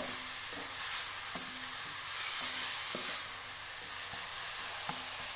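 Chopped onion sizzling in oil in a non-stick wok, with a plastic spatula scraping against the pan now and then as it is stirred. The sizzle eases slightly about three seconds in.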